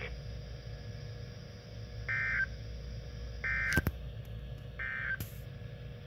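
Three short warbling data bursts from a Midland NOAA weather radio's speaker, about a second and a half apart: the EAS end-of-message code that closes the watch broadcast. A couple of sharp clicks fall between them, the loudest near the middle, over a low steady hum.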